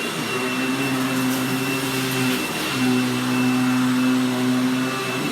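Hoover WindTunnel Anniversary Supreme upright vacuum running on carpet: a steady high motor whine over a lower hum that breaks off briefly about halfway through.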